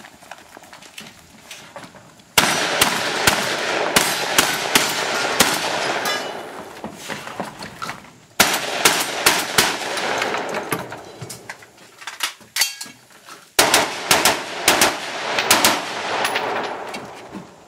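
Rapid strings of gunshots from a competitor shooting a 3-gun stage, several shots a second with echo filling the gaps. The firing comes in three runs: one starting about two seconds in, a second about six seconds later, a third near the end, with short breaks between them.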